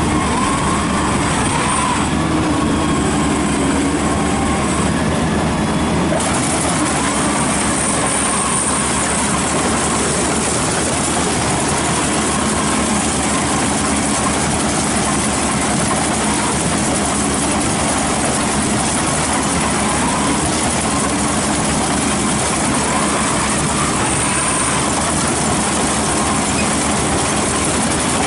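Maxxi Bimo Extreme rice combine harvester running steadily. About six seconds in, a high hiss in the noise grows louder.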